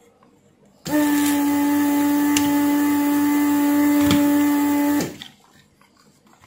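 Electric vacuum pump of a Weller desoldering iron running for about four seconds, sucking solder from a capacitor's leads. It gives a steady hum that starts suddenly and cuts off suddenly.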